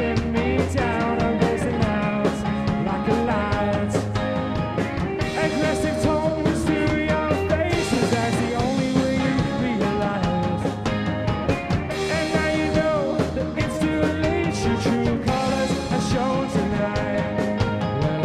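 Indie rock band playing a song: drums with guitar and bass, with singing at times.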